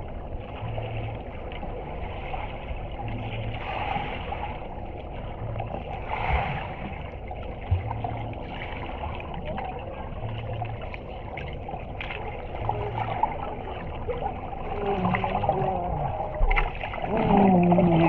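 Muffled underwater noise of a swimming pool, picked up by a submerged camera: water stirred by swimmers, with a low hum that pulses about every two seconds. Near the end a muffled voice rises over it as a swimmer comes close.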